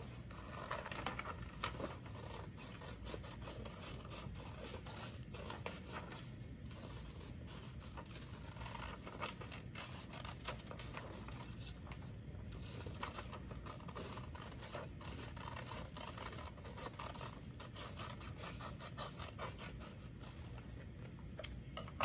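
Two pairs of scissors cutting paper sheets, making a steady run of small irregular snips along with the rustle of the paper being turned.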